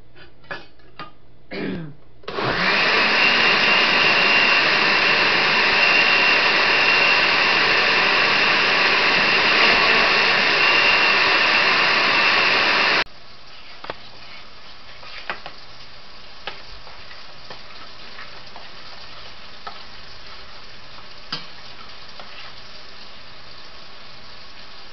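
Countertop blender running steadily with a faint high whine for about ten seconds while it purees the mango-habanero sauce ingredients, then cutting off abruptly. After that a much quieter steady hiss with occasional light clicks of a spoon stirring in a steel saucepan.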